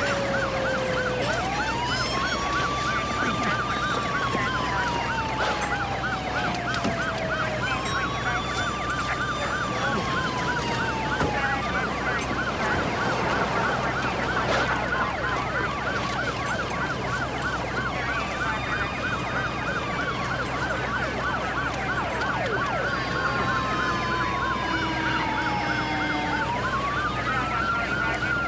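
Several police car sirens sounding together: one in a fast yelp, the others in a slow wail that rises, holds, then falls over several seconds, over and over, overlapping out of step.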